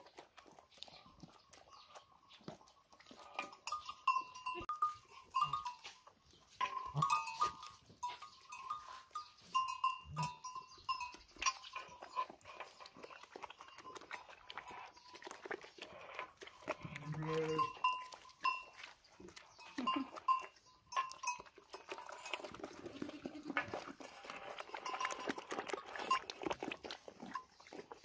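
Small metal bells on the necks of long-haired goats clinking on and off as the goats feed from a metal basin, mixed with short clicks and knocks.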